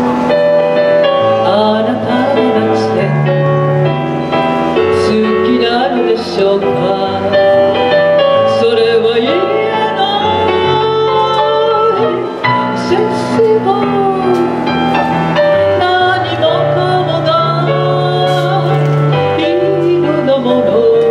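A woman singing a chanson through a microphone, her voice with vibrato, over instrumental accompaniment with held bass notes.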